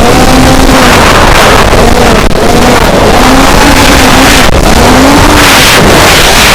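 Racing quadcopter in flight: four Racerstar 2205 2300KV brushless motors spinning KingKong 5040 three-blade props, a whine that rises and falls in pitch with throttle changes. Heavy wind rush on the onboard camera's microphone, the whole very loud.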